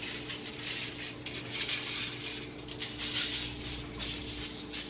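Garlic salt shaken from a small shaker bottle, the granules rattling in the bottle and landing on aluminium foil in a series of uneven quick hissing shakes, over a faint steady hum.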